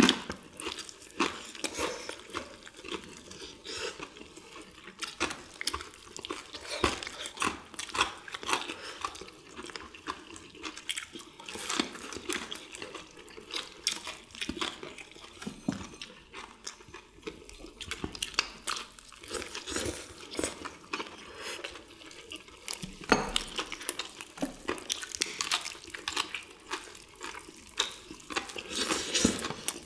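Close-miked eating of crispy fried chicken and battered fried squid: crunching of the fried batter, wet chewing and lip smacks, and chicken being torn apart by hand. There is a louder stretch of crunching about two-thirds of the way through.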